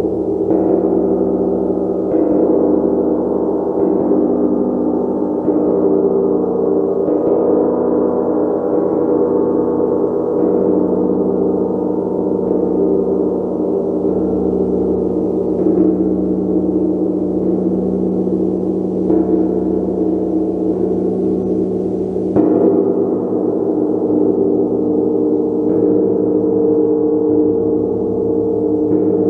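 A gong struck again and again, every two to three seconds, its many overlapping tones merging into one continuous, ringing wash of sound.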